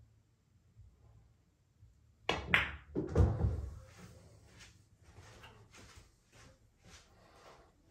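A pool shot: two sharp clicks about a third of a second apart, the cue tip striking the cue ball and then ball clacking on ball, followed by a heavy thud, typical of a ball dropping into a pocket. Fainter knocks follow.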